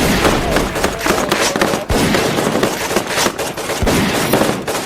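Sustained rapid gunfire: many shots in quick, overlapping succession, like automatic weapons in a firefight.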